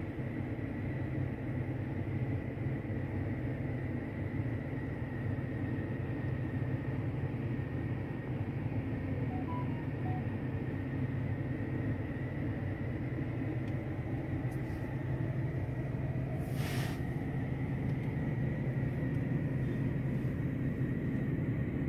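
Steady low hum inside a parked 2016 car's cabin, with a faint steady high whine over it. A brief swish about 17 seconds in.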